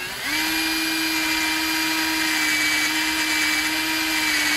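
Cordless drill motor spinning up about a quarter second in, then running at a steady speed with a whine. It is turning an 8 mm threaded rod in a homemade hand lathe while a 5 mm drill bit reams a centre hole in the rod's end.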